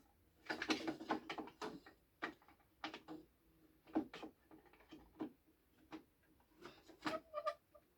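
Plastic Lego and toy pieces being handled: irregular small clicks, taps and knocks, with a brief squeak near the end.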